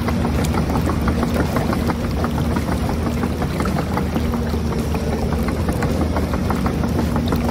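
Radio-controlled Huina 1550 toy excavator driving on its tracks: a steady electric-motor whine under a fast, continuous clicking rattle of the track links.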